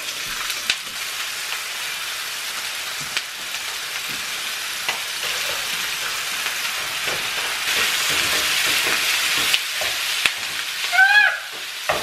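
Ground turkey sizzling as it fries in a frying pan, a steady hiss with occasional pops, while a silicone spatula knocks and scrapes against the pan, breaking up the meat.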